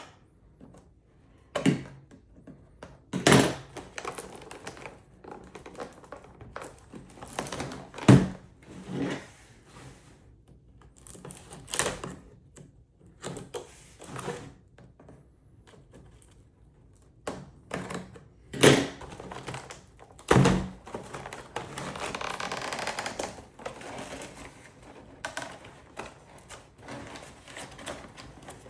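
Plastic toy and its packaging being handled on a tabletop: irregular thunks, knocks and clicks. A few of the knocks are louder. About two-thirds of the way through there is a couple of seconds of steady scraping or rustling.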